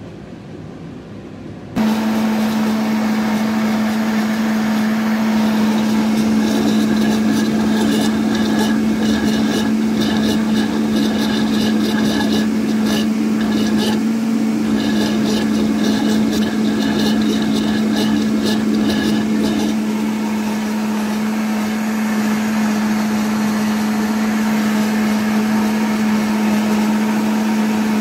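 Countertop blender motor switches on about two seconds in and runs steadily at high speed, blending mango pulp, milk and ice. Ice clattering against the jar comes through from about six seconds in until near the middle, briefly dropping away once, then the blend turns smooth and only the motor hum remains.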